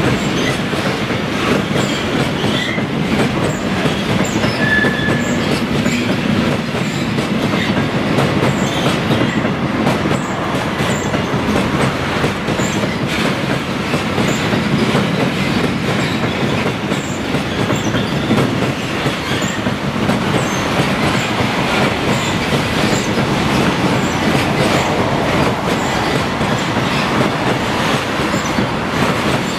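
Freight train wagons rolling past, wheels clattering steadily over the rail joints, with a short high wheel squeal about five seconds in.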